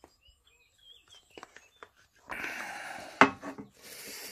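Faint birds chirping, then gloved hands fitting parts of a Stihl HT 75 pole pruner's engine together: rubbing and scraping, with one sharp click a little past three seconds in.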